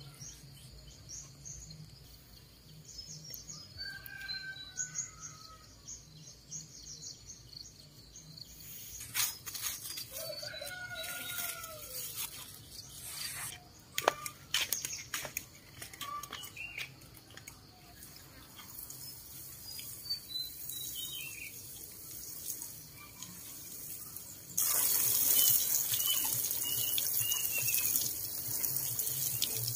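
Small birds chirping intermittently, with a few knocks and clatters in the middle. About 25 seconds in, water starts pouring from a metal watering can's rose onto soil and plants, a steady splashing hiss that is the loudest sound.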